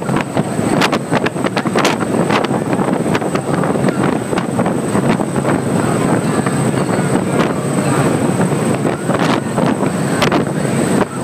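Wind buffeting the phone's microphone on the open deck of a fast-moving boat, in uneven gusts over the steady rush of the boat's engines and water.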